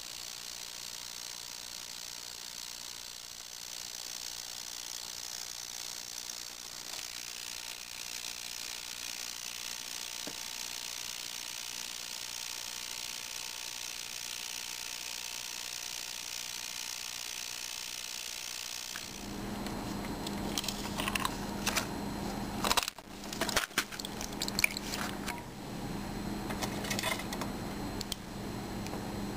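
Ultrasonic cleaner running with a steady high hiss while it cleans gunked-up airsoft pistol parts. About two-thirds through, the hiss stops, a low hum sets in, and a run of clinks and knocks follows as the metal parts are handled and lifted out of the tank.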